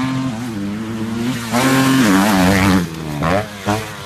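Motocross bike engine revving hard under load up a dirt track. It gets louder about one and a half seconds in, then the revs dip and rise in several quick sweeps near the end, as the bike reaches a jump.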